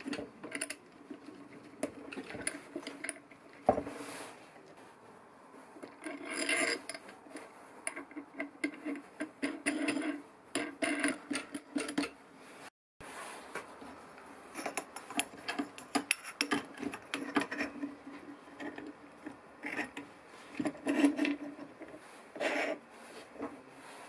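Steel tubes, nuts and washers clinking and clattering as they are handled and slid onto threaded steel rods by hand, in irregular small knocks and rattles. A brief moment of total silence falls about halfway through.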